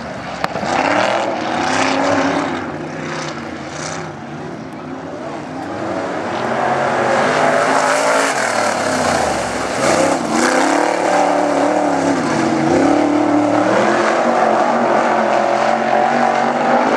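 Dirt modified race car's V8 engine running hard on a qualifying lap, its pitch dropping and climbing again as the car lifts for the turns and accelerates out of them, louder in the second half.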